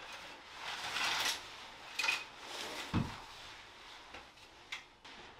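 Shower curtain rod being handled and taken down: rustling and scraping, a sharp click about two seconds in, a knock about a second later, and a small click near the end.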